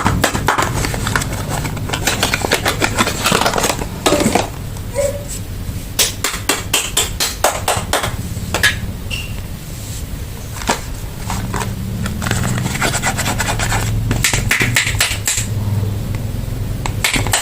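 Hands unwrapping and handling bars of soap and their packaging: irregular clicks, taps and scratching.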